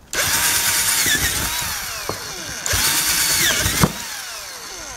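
Hand-held electric drill boring holes through a Kydex sheet into plywood in two bursts, each a second or two long. After each burst the motor's whine falls in pitch as it slows.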